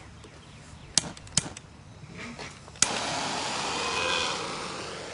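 A lighter clicks twice, then about three seconds in a flame catches with a sudden whoosh and hisses steadily, slowly fading.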